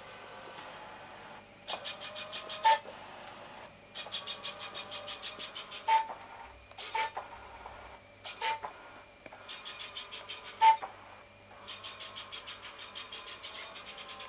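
Small home-built obstacle-avoiding robot rover running on carpet: bursts of rapid, even ticking, about ten a second, each lasting a second or two, broken now and then by short, sharp high beeps.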